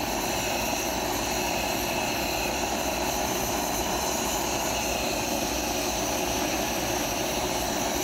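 Dental soldering torch burning steadily with an even rushing noise, its flame heating a gold bridge in soldering investment before the solder is fed in.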